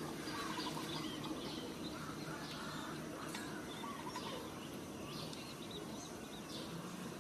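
Wild birds chirping and trilling in short scattered calls over steady outdoor background noise.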